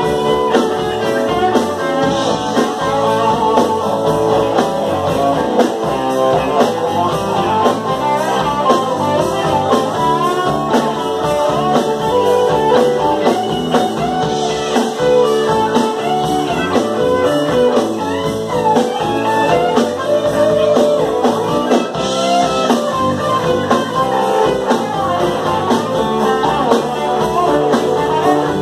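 Live band playing a bluesy rock number at full volume: electric guitars, bass guitar and drum kit.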